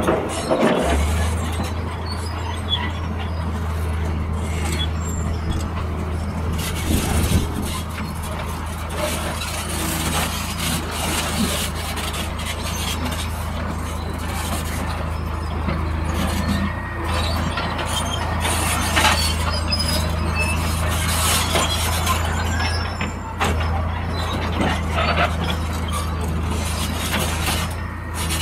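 Excavator diesel engines running with a steady low drone, with irregular clatter and metal squeals as rock is scooped and dropped into dump truck beds.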